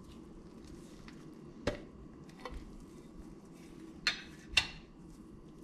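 A few short knocks and clinks from a glass pickle jar being handled and set down on a wooden cutting board: one light knock, a faint one, then two louder clinks about half a second apart near the end.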